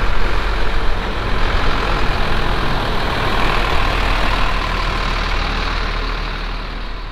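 Horse lorry's diesel engine running as the truck pulls away, growing gradually fainter as it drives off.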